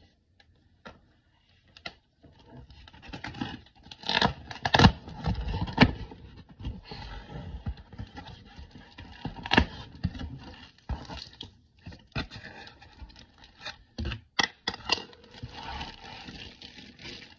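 A few faint clicks, then from about two seconds in, cardboard scraping and snapping as a taped shipping box is cut open and its flaps pulled back. Plastic wrap around a framed picture crinkles as it is handled.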